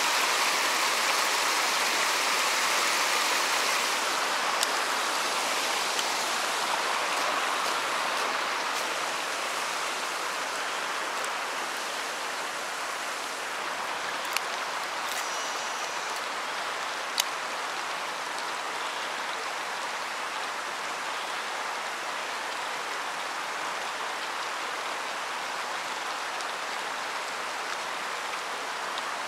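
Steady rushing of running water, easing slightly over the first ten seconds, with a few faint sharp clicks.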